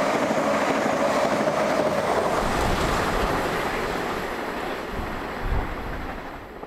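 Class 395 Javelin high-speed electric train passing at speed: a loud rush of wheel and air noise with a steady whine, fading away over the last few seconds, with one brief low thump near the end.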